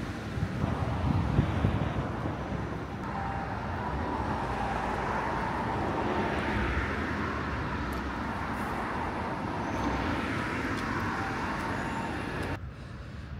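Road traffic: cars passing on the street, a steady noisy wash with a low rumble that swells and fades, cutting off sharply near the end.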